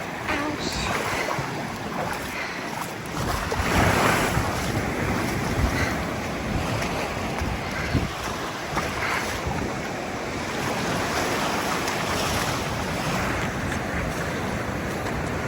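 Ocean waves washing up on a sandy shore, with wind buffeting the microphone; a wave surges loudest about four seconds in.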